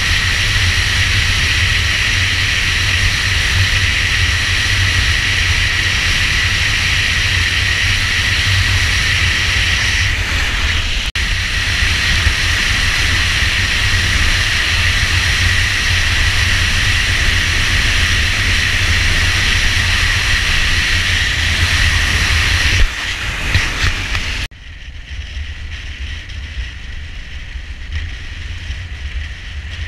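Steady wind rush and low buffeting on the camera microphone with engine and road noise from a motorcycle riding at speed. About 24 seconds in the sound cuts abruptly to a quieter, thinner rush.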